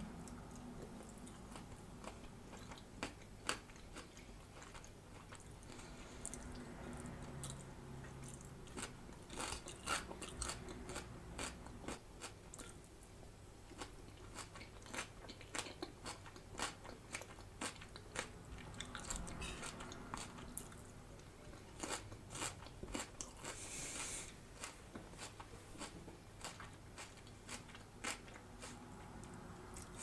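Close-miked chewing of crisp raw salad vegetables, a stream of sharp crunches that come thickest about ten seconds in and again past twenty.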